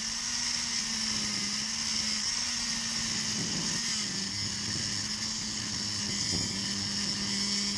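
Angle grinder with an abrasive disc cutting through the steel shackle of a laminated Master Lock padlock: a steady motor whine under a high, hissing grind of the disc on the steel.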